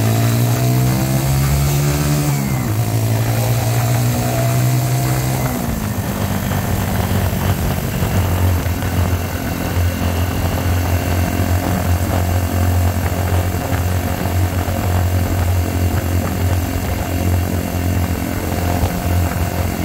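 Single-cylinder engine of a Mutt Akita 125 motorcycle under way through a slash-cut exhaust freshly repacked with glass fibre packing: the revs climb and drop twice in the first six seconds as it shifts up, then it runs steadily at a lower pitch, with wind noise on the microphone.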